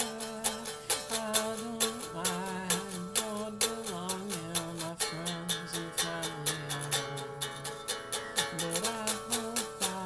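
Song: a man singing a slow melody over a steadily picked string accompaniment, about three plucked notes a second.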